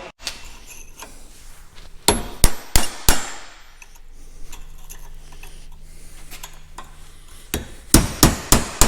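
Hand hammer striking metal in repeated ringing blows: four blows about two seconds in, then a faster run of about three blows a second near the end, with a faint low steady hum in between.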